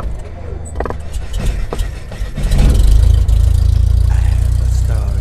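Cinematic intro sound effect: a few sharp crackles in the first couple of seconds, then a deep rumble that swells about two and a half seconds in and holds.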